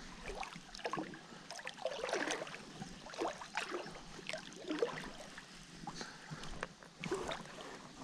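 Irregular splashing and sloshing of creek water, a quick run of short splashes throughout.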